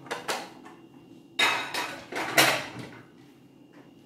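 Dishes clattering as they are handled and put away: a few light clinks, then two louder clatters about one and a half and two and a half seconds in, dying away near the end.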